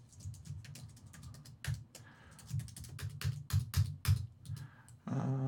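Typing on a computer keyboard: a run of irregular key clicks and taps. Near the end comes a short, low hum from a man's voice.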